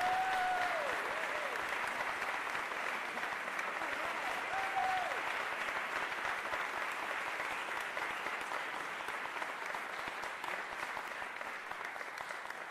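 Concert audience applauding after a piece ends, with a few cheers called out near the start and again about five seconds in. The clapping tapers off slightly toward the end.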